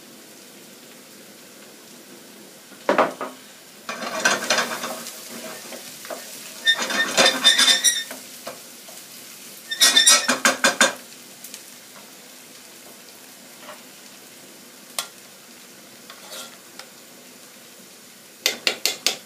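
Chopped onions sizzling in a frying pan as a wooden spoon stirs and scrapes them in several bursts of quick strokes. A quick run of sharp taps comes near the end.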